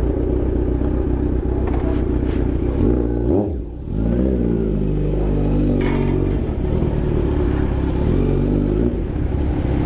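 Motorcycle engine running at low speed. A little over three seconds in its note dips briefly, then falls and rises again as the throttle changes.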